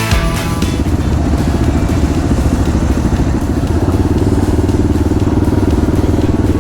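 Yamaha XT250 single-cylinder motorcycle engine running at a steady pitch under way.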